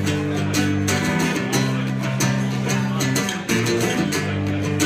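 Acoustic guitar strummed in steady rhythm, an instrumental passage of a live song with chords changing a few times.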